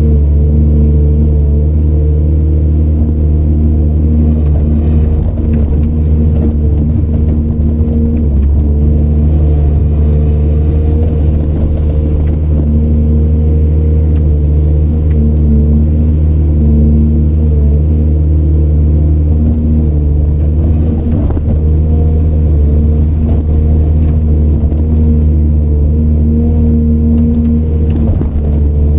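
Heavy diesel engine of earthmoving machinery running steadily at a constant deep pitch, with a few faint knocks.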